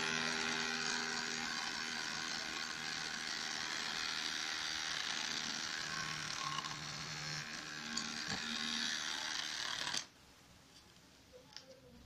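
Small toy DC motor of a homemade cup blender running steadily, spinning pencil-sharpener blades inside a plastic cup, then cutting off abruptly about ten seconds in.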